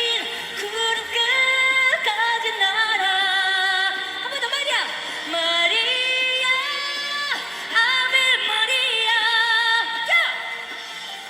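A woman singing a wordless ad-lib over live backing music: long held notes with vibrato, broken by swooping runs that slide down in pitch.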